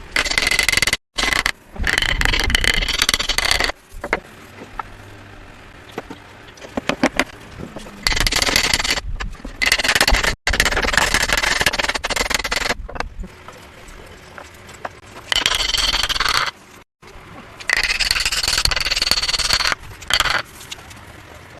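Hand tools cutting wood: a series of scraping strokes, each one to two seconds long, with quieter stretches between and several abrupt cuts.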